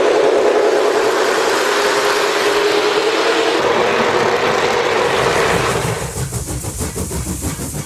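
Lionel O-gauge Santa Fe El Capitan model passenger train running on three-rail track: a steady whirring with a humming tone from the motor and wheels. About six seconds in it drops in level and turns into a rhythmic clicking as the cars roll past.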